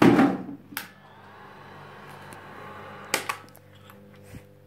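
Old Soviet-made Rus home film projector being switched on: a loud switch click and a second click, a faint whir for about two seconds, then two more clicks as it is switched again. The projector fails to start, a fault of this machine, which does not always start.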